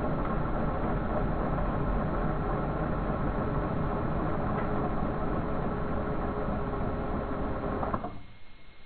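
LEGO 7939 cargo train's Power Functions train motor running it along plastic track: a steady rattling hum that stops abruptly with a sharp knock near the end.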